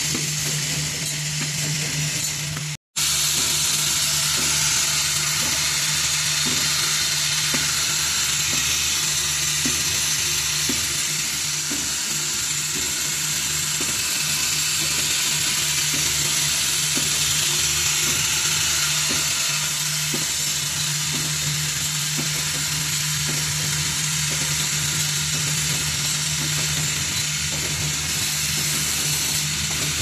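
Automatic assembly machine for pneumatic air fittings running: a steady hum and hiss with faint, regular mechanical clicking as it cycles. The sound cuts out for an instant about three seconds in.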